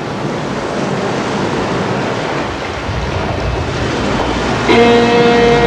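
Bow wave of a sailing boat under way: water rushing and splashing along the hull, with wind on the microphone, fading in at the start. Near the end, music comes in with a held note.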